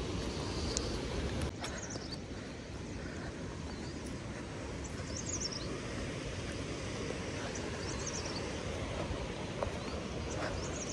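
Steady outdoor noise, an even rushing hiss, with a few faint high chirps scattered through it, around five and eight seconds in.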